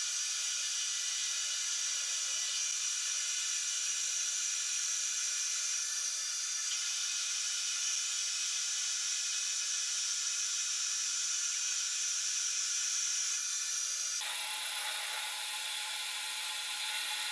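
Metal lathe taking a turning cut along a metal bar with a carbide-insert tool: a steady high-pitched hiss as the chips curl off. About fourteen seconds in the sound changes as the cut ends and the lathe keeps running.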